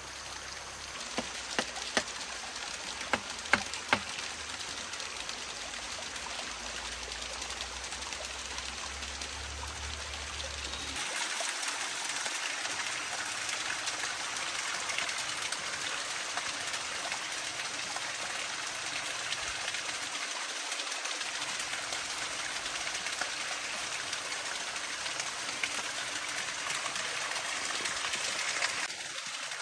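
Steady rushing of running water, like a stream, with a few sharp clicks in the first few seconds. It grows louder and brighter about a third of the way in, then drops off suddenly just before the end.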